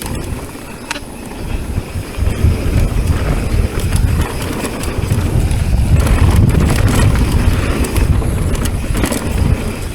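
Riding noise of a mountain bike on a downhill trail: wind rushing over the camera microphone with tyres and the bike rattling over the dirt, sharp clicks and knocks scattered through. It gets louder from about three seconds in as speed builds.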